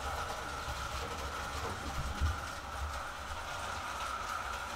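Vintage Marx electric toy train running around its metal track: a steady motor whine over a low rumble of the wheels on the rails.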